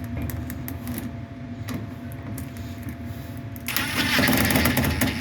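Power drill running in a loud whirring burst that starts a little after halfway, after a few seconds of light handling clicks.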